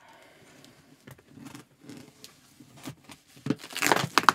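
Packing tape being worked loose and pulled off a cardboard shipping box: soft scratching and rustling on the cardboard, then a loud rip of tape coming away in the last second.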